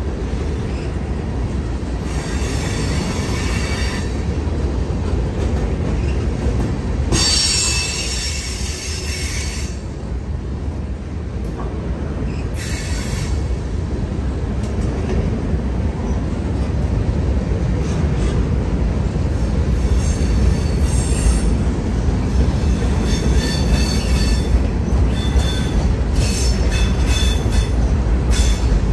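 Loaded CSX freight train rolling past with a steady low rumble, its wheels squealing high-pitched now and then, more often in the last third, as it leaves the yard. The rumble grows slowly louder toward the end.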